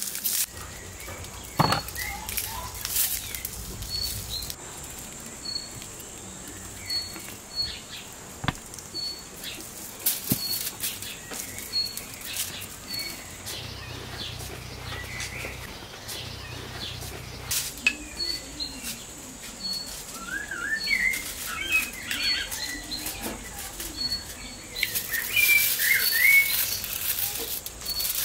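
Small birds chirping: a short high chirp repeats about once a second, and quicker rising and falling calls join in during the last third. Scattered light clicks, with aluminium foil crinkling near the end.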